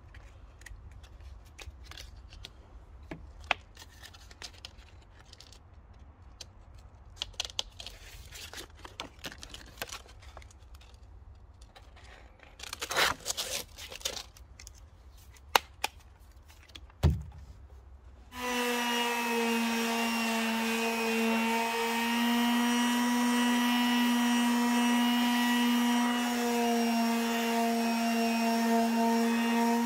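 Pine board edge sanded by hand with sandpaper: faint scratchy rubbing strokes with a few sharp knocks. About 18 seconds in, a small electric detail sander starts and runs steadily with a pitched hum, much louder than the hand sanding.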